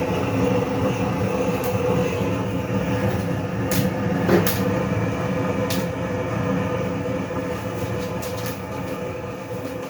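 A steady low rumbling drone with a held hum, broken by a few sharp clicks.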